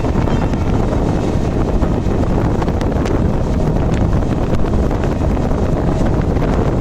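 Express train rushing past at speed: a loud, steady rumble of wheels on rail with wind buffeting the microphone and a few sharp clicks.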